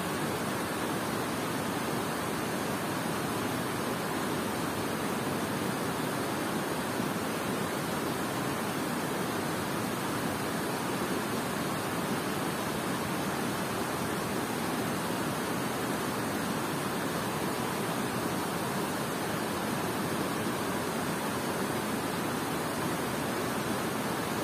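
Water pouring over a concrete dam spillway and churning in the fast river below: a steady, unbroken rush of water.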